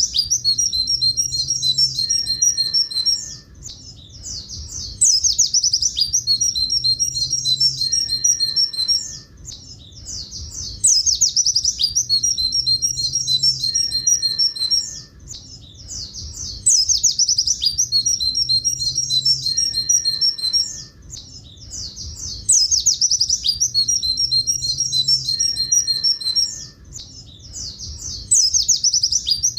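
Pleci buxtoni white-eye singing its long 'tulit tulit' song: a rapid run of high, clear notes lasting about three and a half seconds, repeated the same way about every six seconds with short quieter gaps, as a masteran recording for training caged white-eyes.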